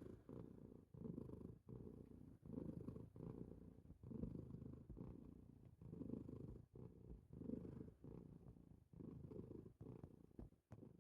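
Faint, low rumbling breath sounds from a drowsy pet, pulsing evenly about every three-quarters of a second, which the owner takes for snoring.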